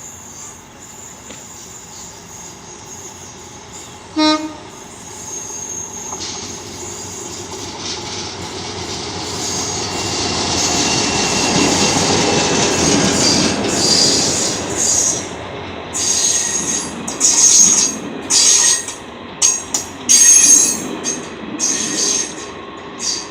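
EMD GT22CW-2 diesel-electric locomotive hauling six coaches into a station: one short horn blast about four seconds in, then the engine and wheel rumble swells as the train draws near, followed by repeated high-pitched wheel and brake squeals as it slows to a stop.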